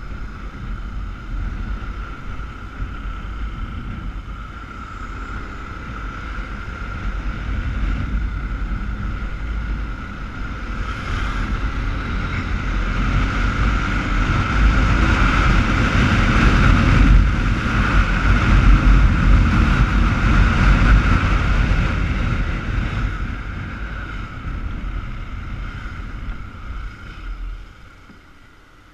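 Heavy wind buffeting on a helmet-mounted microphone over a motorcycle engine while riding, growing louder as the bike speeds up and dying away near the end as it slows to a stop.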